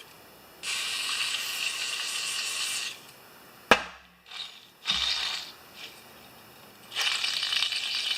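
Metal parts of a lawn-mower deck spindle being worked by hand: two stretches of steady, rattling metallic grinding of about two seconds each, with a sharp metal knock and a couple of dull thuds between them.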